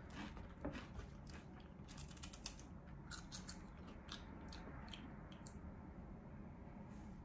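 Faint crunching of cheese-corn puff snacks being chewed, a run of small crunches thickest in the middle, then only a few.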